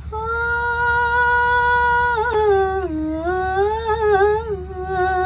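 A high voice singing a wordless, hummed opening phrase: one long held note for about two seconds, then a wavering run that dips and climbs back, settling on a lower held note near the end. A steady low hum sits underneath.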